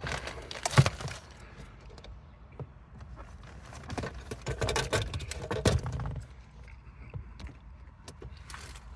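Wiring harness leads and small connector parts being handled: irregular rustling and light rattling, with a few sharp clicks, busiest near the start and again in the middle.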